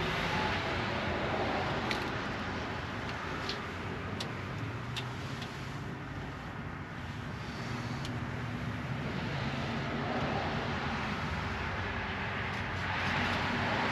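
A few sharp clicks and taps as the plastic liftgate trim panel and its clips are worked loose by hand, over a steady background rumble.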